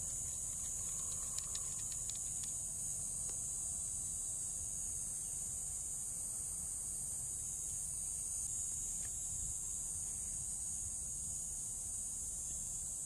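A steady, high-pitched insect chorus drones without a break over a low rumble, with a few faint clicks in the first couple of seconds.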